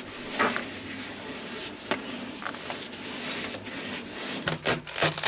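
Paintbrush rubbing and dabbing resin into biaxial fiberglass cloth, a steady scratchy brushing with a few light knocks.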